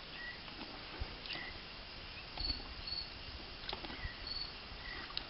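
Quiet outdoor ambience with scattered short, high chirps, some higher than others, and a few soft clicks and knocks as the horse's bridle is handled.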